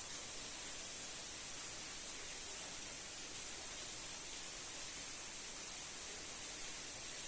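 Steady, even high-pitched hiss with no distinct calls or events.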